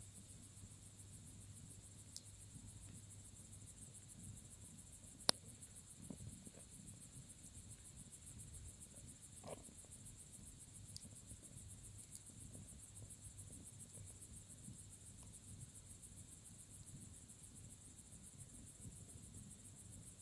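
Bonfire burning quietly with scattered crackles and a sharp pop about five seconds in, over a steady high chirping of crickets.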